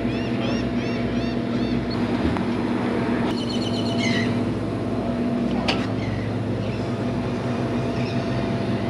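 Boat engine running with a steady hum. Birds call over it: a repeated series of calls in the first second, and another short burst of calls about three to four seconds in.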